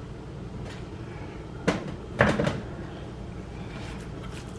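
A sharp click, then about half a second later a heavier knock, over a low steady background hum.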